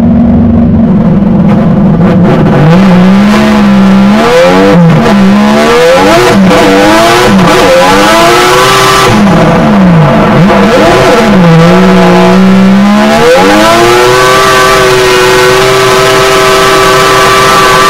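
Drift car's engine heard from inside the cabin, running steadily at a low pitch at first, then revved hard up and down over and over as the car pulls away and drifts. Near the end it climbs to a high pitch and holds there.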